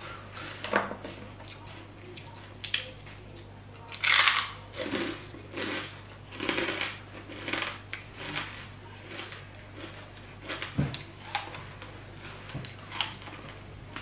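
Close-up eating sounds: irregular crunchy chewing and mouth smacks from eating crispy pork rinds, with a soft knock against the plate or table a little before two-thirds of the way through, over a faint steady hum.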